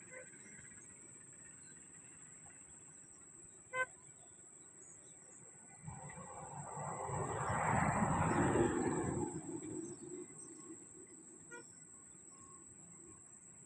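A vehicle passing by, its noise swelling from about six seconds in, peaking, then fading over about four seconds. A single sharp click comes just before that.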